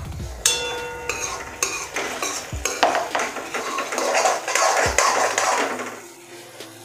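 Steel spoon stirring and scraping veg Manchurian balls in thick sauce around a metal kadhai, clinking against the pan's side with brief metallic ringing. The stirring eases off near the end.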